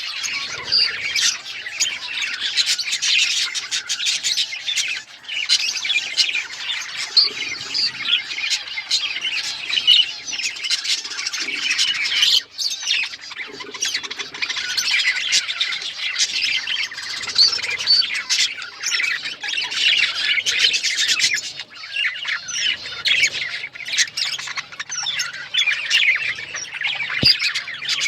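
Several budgerigars chattering, with dense overlapping chirps and squawks that run almost without a break.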